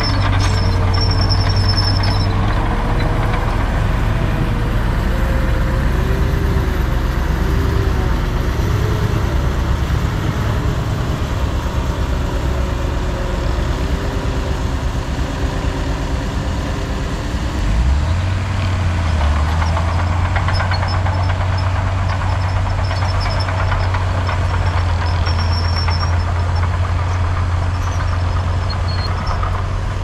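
Heavy diesel earthmoving machinery running steadily, with a deep engine drone and a wavering higher whine over it in the first half. The drone shifts in pitch about halfway through.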